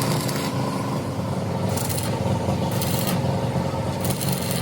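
A motor runs steadily with a fast, even pulse, with three short bursts of high scraping hiss over it.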